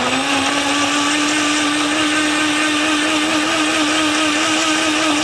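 Electric kitchen blender motor running loudly at a steady speed, a constant hum over a harsh whirring noise.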